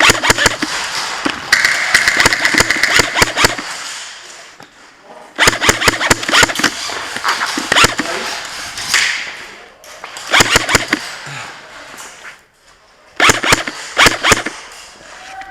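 Airsoft electric guns firing on full auto in four bursts of rapid clicking shots, the first and second lasting two to three seconds, the last two about a second each.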